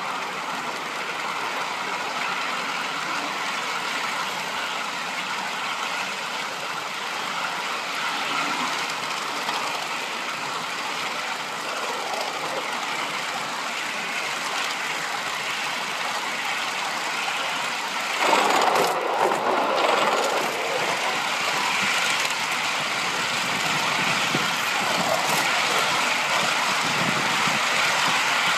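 3½-inch gauge live-steam model of a BR Standard Class 9F 2-10-0 running along its track, a steady mix of steam exhaust and small wheels on rail. About eighteen seconds in a louder rush of noise lasts a couple of seconds, and the sound grows slightly louder towards the end.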